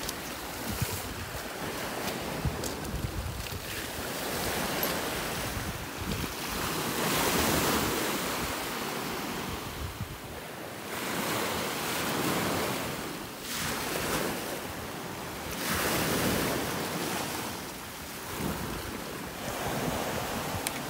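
Sea waves washing ashore, the surf surging and falling back every few seconds, with wind rumbling on the microphone.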